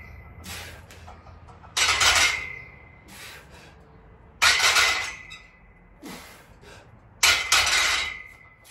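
Seated barbell shoulder press: a sharp noisy burst with a ringing tail on each rep, three times, about every two and a half to three seconds.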